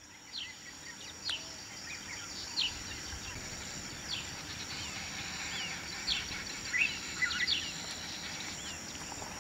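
Outdoor nature ambience: a steady high insect drone with a bird giving short, sharp chirps every second or so.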